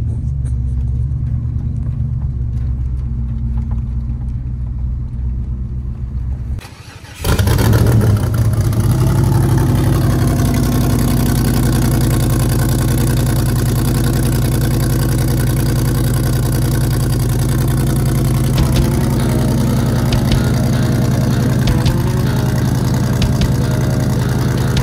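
Steady low rumble inside a pickup cab on the road. About seven seconds in, the sound switches to the Ultra4 rock-racing buggy's engine, which runs loud and steady.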